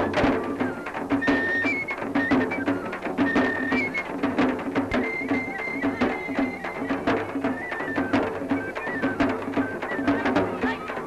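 Traditional Indian folk music with rapid drum strikes and a high melody in short held notes over a pulsing low beat.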